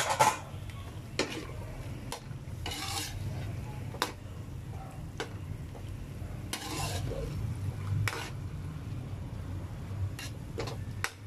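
A cooking spoon stirring chicken livers and gizzards in an aluminium wok, scraping the pan and clinking against its sides now and then, while the pan sizzles lightly.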